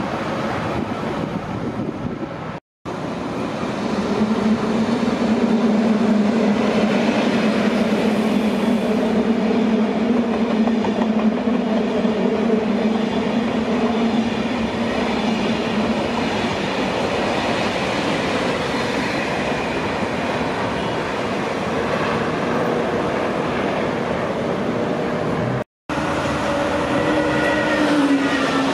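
TGV high-speed trains passing close by, with the noise of wheels on rails. First a double-deck TGV Duplex runs past with a steady hum for about ten seconds. Then, after a sudden break, a TGV Atlantique set passes with a slightly falling whine. The sound cuts out completely twice, briefly.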